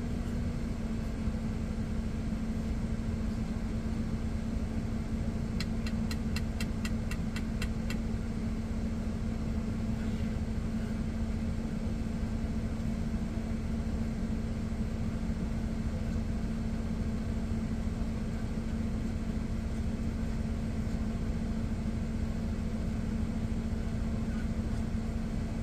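Steady low rumble of an idling truck engine heard inside the cab, with a constant hum. About six seconds in comes a quick, even run of about ten light clicks lasting two seconds.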